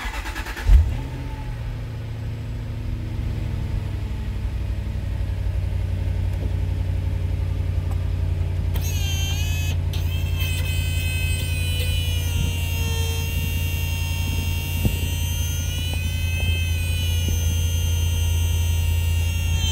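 Jaguar XK8 convertible top's electro-hydraulic pump starting with a thump and running with a steady low hum. About nine seconds in, a high, wavering whine joins it. The pump has just been fitted with a pressure relief valve meant to hold the system under 1000 PSI.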